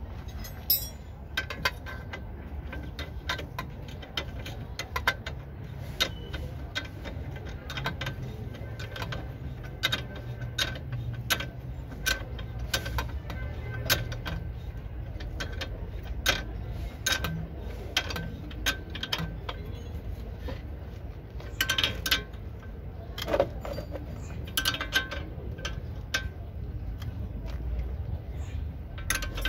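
Irregular metallic clicks and clinks of a spanner working on the bolts of a car's front suspension arm, some with a short ring, over a low steady rumble.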